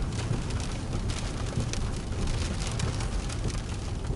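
Rain falling on a car, heard from inside the cabin as a steady hiss of many small drop ticks, over the low steady hum of the car.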